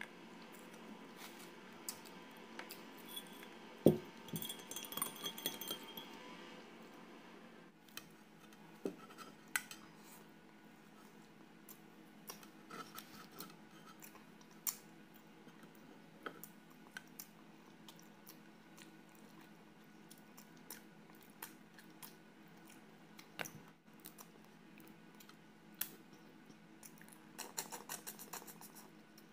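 Close-miked eating of mussels and crab by hand: scattered small clicks and clinks of shells and a plate, with one louder knock about four seconds in and a quick run of clicks near the end. A faint steady hum lies underneath.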